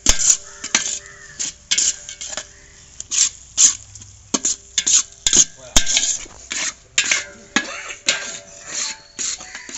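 Spoon scraping and stirring spiced onion-tomato masala in a cooking pot, in irregular strokes about one or two a second, with the masala sizzling as it fries.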